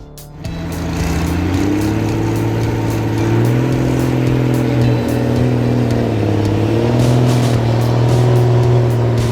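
Logging truck's diesel engine working under load, its pitch rising over the first couple of seconds and then holding with small shifts up and down.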